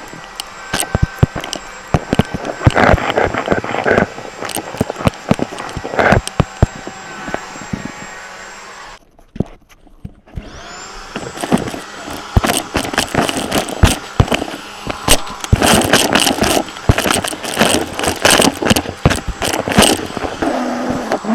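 Upright vacuum cleaner running with a high motor whine, amid rapid clicking and rattling as it is pushed quickly over the floor and picks up debris. About nine seconds in it shuts off for a moment, then starts again, the whine rising as the motor spins back up.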